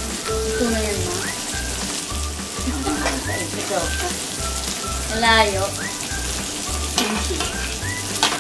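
Pork belly slices sizzling on a grill pan, an even frying hiss, under background music with a steady bass beat.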